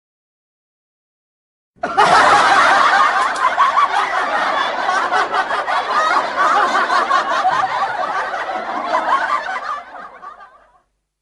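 Laughter sound effect: people laughing, starting about two seconds in and fading out near the end.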